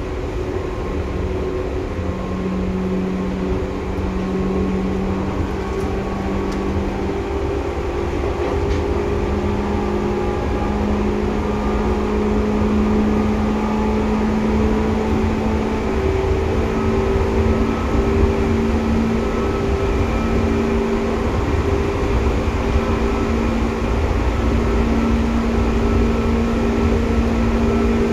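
Seibu 2000 series electric train running, heard from inside the car. There is a steady low rumble from the wheels and running gear, and a whine from the motors and gearing that climbs slowly in pitch as the train picks up speed.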